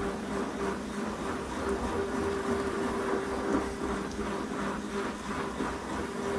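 Stick blender running steadily in thick hot-process soap batter in a plastic container, its motor giving a constant hum. The blending churns the soap to speed up its saponification reaction.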